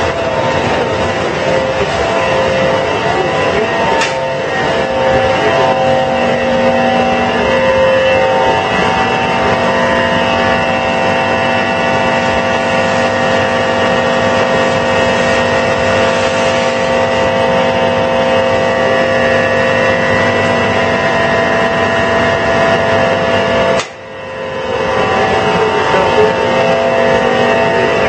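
Steady industrial machinery noise from a running mesh belt heat-treatment furnace line: a loud, even wash with several steady humming tones. About 24 seconds in the sound drops out for a moment, then comes back.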